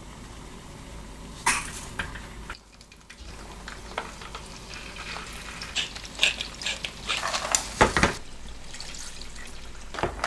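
Garlic and then clams, shrimp and scallops sizzling gently in olive oil in a frying pan over low heat, with scattered clinks and knocks of shells and a utensil against the pan, busiest and loudest about six to eight seconds in.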